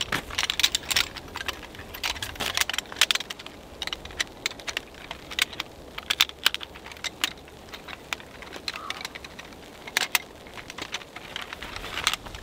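Metal poles of a collapsible camp chair clicking and clinking together as the folded frame is snapped into shape, in irregular bursts with a quieter spell in the second half.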